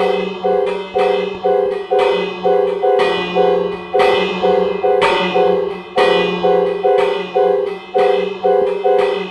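Fire alarm devices sounding together in a pulsing pattern: a sharp, ringing strike about twice a second, each fading before the next, over steady alarm tones that switch on and off.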